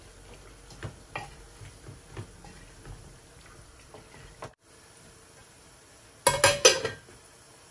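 Light knocks and scrapes of a spoon moving fish pieces around in a stainless steel pot of curry. About six seconds in, a steel lid goes onto the pot with a few loud, ringing metal clanks.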